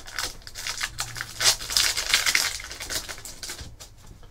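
Crinkling and rustling of a trading-card pack's plastic wrapper being opened, with the cards handled, in quick crackly clicks that thin out near the end.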